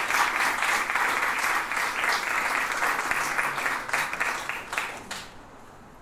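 A small audience applauding, the claps thinning out and dying away about five seconds in.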